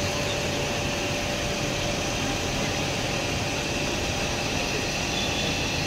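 Large pedestal fan running: a steady whirring rush of air with a constant hum.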